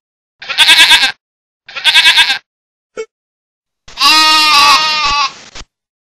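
Goat and sheep bleating: two short, quavering bleats close together, then a single longer bleat about four seconds in.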